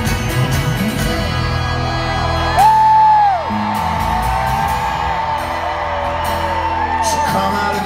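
Live folk-rock band playing an instrumental passage on acoustic guitar and upright bass, recorded from the arena crowd. About two and a half seconds in, a loud whoop from a nearby audience member rises, holds for under a second and falls away.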